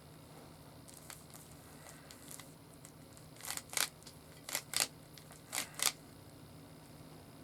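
Plastic Rubik's Cube being twisted: three quick pairs of clicking turns about a second apart, starting about halfway in, with a few fainter clicks before.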